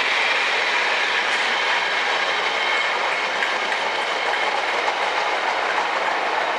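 Coaches of a passing railway test train rolling by on the track: a steady rush of wheels on rail, with a faint high ringing.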